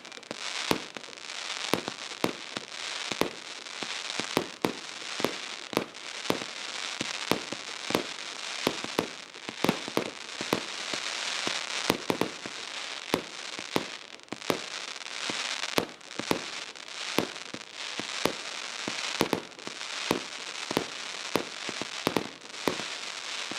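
Brocade Sin consumer firework battery firing shot after shot, one to two sharp bangs a second, over a steady crackling hiss.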